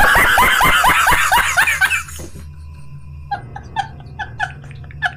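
A man laughing hysterically: a loud, rapid cackle for about two seconds, then quieter, high-pitched squeaky gasps of laughter, about four a second, as he runs out of breath.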